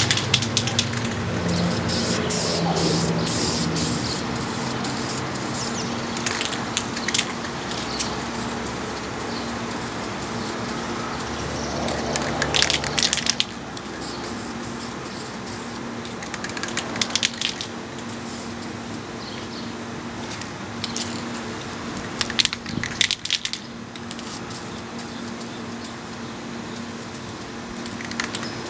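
Aerosol spray-paint can spraying navy blue paint in repeated short passes, a continuous hiss broken by several clusters of sharp clicks and rattles.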